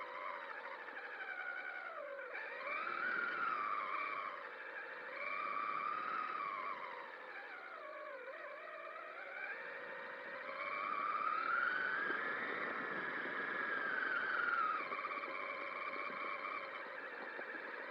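Electric motor whine of a Traxxas Summit RC truck, rising and falling in pitch as the throttle is worked, in several swells with a long, higher one after about ten seconds.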